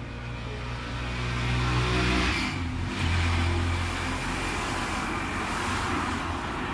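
An engine running: a low, steady hum that changes pitch about two and a half seconds in, under a rushing noise that swells and then eases.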